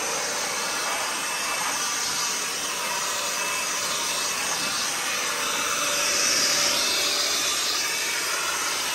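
Battery-powered cordless leaf blowers running steadily, blasting water off the truck's paint to dry it. The rush of air swells louder about six seconds in.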